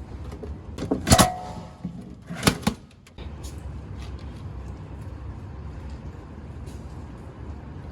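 Two sharp clunks about a second and a half apart, the first with a brief ringing, followed by a steady low hum.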